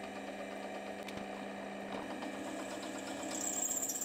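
Drill press motor running with a steady hum while a twist bit drills into a hardened steel clamp bar. About three seconds in, a high-pitched squeal of the bit cutting the steel sets in.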